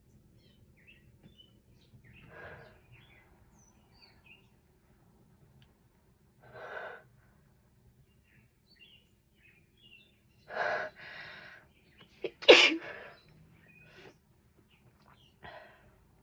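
A person sneezing over and over from an allergy, with short sharp breaths between the sneezes; the loudest sneeze comes about twelve and a half seconds in. Faint bird chirps in the background.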